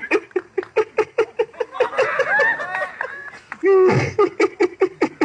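A teenage boy's staged, theatrical laugh, short "ha-ha" pulses about four or five a second from a single voice. It pauses briefly, then starts again with a louder, longer burst about four seconds in, as part of a dramatic monologue.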